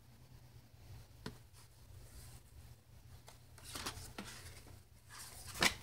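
Leaf-printed paper pages being handled and turned over by hand: soft paper rustling with a few light taps, the loudest a sharp click near the end.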